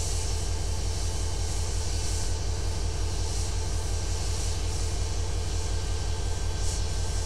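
Diesel locomotive engine running at idle: a steady, deep throb with no change in speed.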